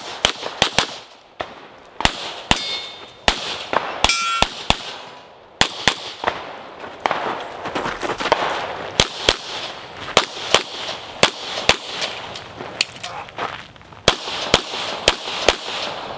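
Rapid handgun fire during a timed USPSA stage run: shots in quick pairs and strings, with short lulls while the shooter moves between positions. Some shots are followed by metallic clangs and a brief ringing.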